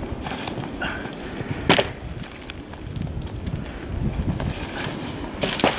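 Wind buffeting the microphone, with two sharp woody cracks, one about two seconds in and a louder one near the end, as a woody vine hanging from a tree is pulled on.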